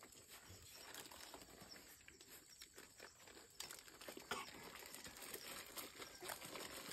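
Faint crinkling of paper and a few soft clicks near the middle, as people eat chatpate out of paper wrappers.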